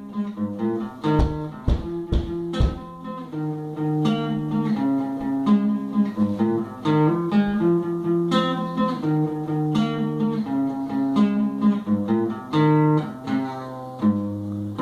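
A guitar being played, a run of picked notes and chords, with several sharp thumps in the first few seconds.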